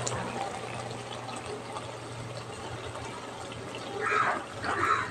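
Soybean curry bubbling in a wok on the stove: a steady sizzling hiss over a low hum, with two brief louder sounds about four and five seconds in.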